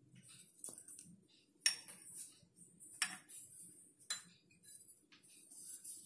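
A metal spoon clinking lightly against a stainless-steel bowl, about four faint separate clinks roughly a second apart, as grated coconut is spooned onto flour.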